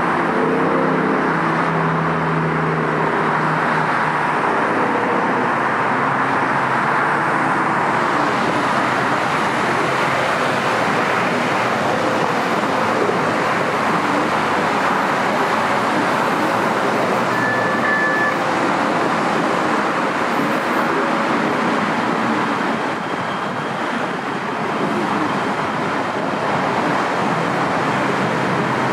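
Steady freeway traffic noise, an unbroken rush of tyres and engines. A few short low humming tones sound in the first few seconds, and one short high tone about two-thirds of the way through.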